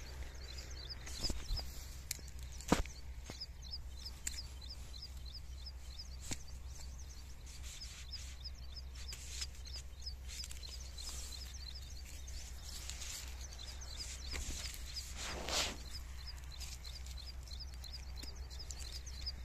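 Small birds chirping rapidly and repeatedly in the background. A few sharp clicks and a brief rustle come through, the loudest in the first few seconds.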